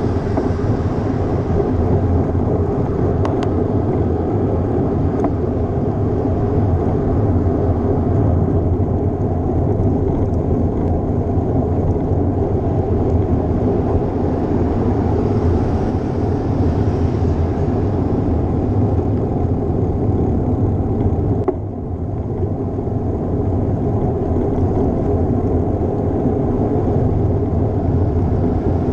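Steady rushing noise of riding a bicycle, heard through a bike-mounted GoPro action camera: wind on the microphone and tyre noise on the road. It dips briefly about three-quarters of the way through.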